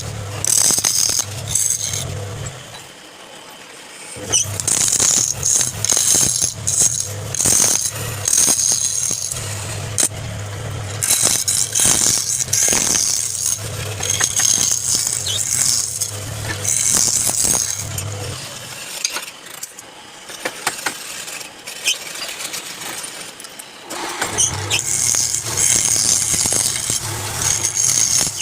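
Wood lathe running with a turning tool cutting the spinning wood: a low hum under a hiss of cutting that comes and goes in stretches, with clatter and clicks. It drops away twice.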